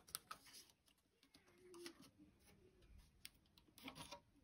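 Near silence with a few faint clicks and taps, just after the start and again near the end: a plastic circuit board being handled.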